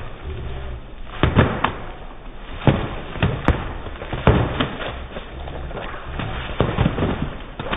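Foam pool noodles smacking against each other and against bodies in irregular sharp hits, over splashing water.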